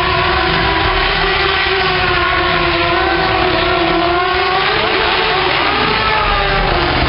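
Stunt vehicle engine running and revving, its pitch rising and falling slowly over several seconds.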